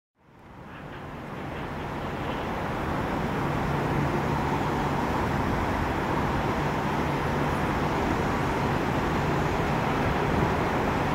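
Two coupled EN57AKM electric multiple units approaching on the rails, a steady running rumble with a low hum. It fades in from silence over the first couple of seconds, then holds level.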